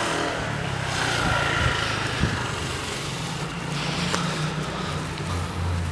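Street traffic: a motor vehicle's engine running with a steady low hum over road noise, with a couple of short knocks about two seconds in.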